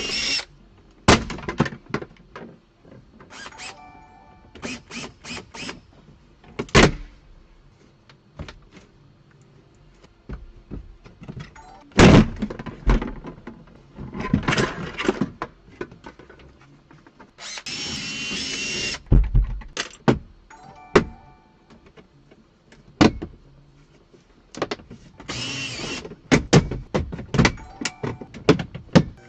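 A cordless drill or driver run in short bursts a few seconds long, taking out fasteners, among many sharp knocks and clanks of parts being pulled and handled.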